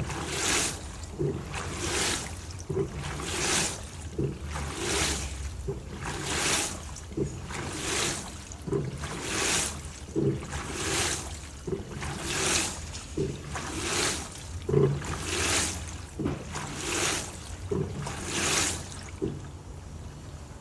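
LG TurboDrum WT-R852 top-loading washing machine churning a full load of bedding in water: a regular swish of sloshing water with a soft thump, about every one and a half seconds, as the drum turns back and forth. The rhythm stops shortly before the end.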